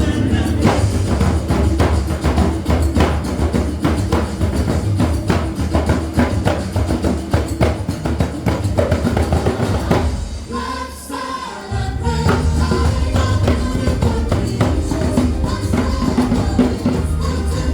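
Loud samba-style show music with a dense percussion beat, tambourine and singing; the drums drop out for a couple of seconds about ten seconds in, then the full beat comes back.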